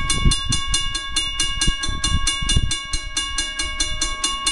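Railroad crossing bell ringing in quick, even strokes, about four or five a second, while the crossing signals are activated for an approaching train, with irregular low rumbling underneath.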